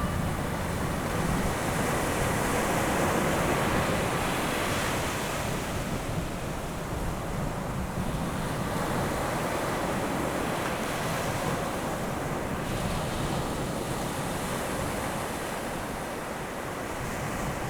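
Ocean surf washing in, a steady rushing noise that swells and eases slowly, with wind.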